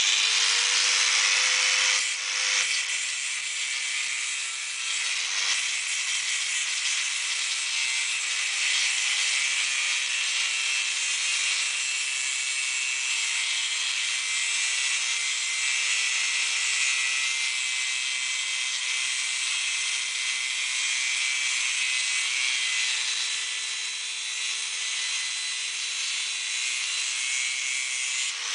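Angle grinder cutting into a metal bicycle frame: the disc grinding on the metal gives a steady high-pitched hiss over the motor's whine, starting suddenly and dipping slightly now and then as the pressure changes.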